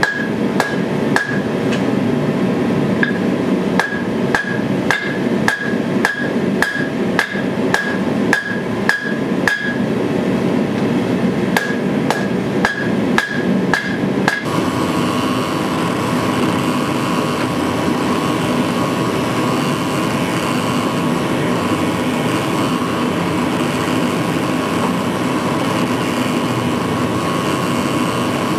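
Hand hammer striking a red-hot steel blade on an anvil, about two blows a second, each with a short ringing note, with a pause of about two seconds partway through. About halfway through, the blows stop and a steady machine hum takes over.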